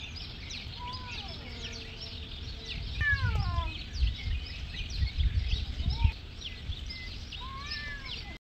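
Cats yowling in a fight standoff: a few drawn-out yowls that slide down in pitch, the longest about three seconds in, with a shorter rising-and-falling one near the end. Beneath them runs a dense chatter of small birds chirping, and low bumps and rumbles come through the middle.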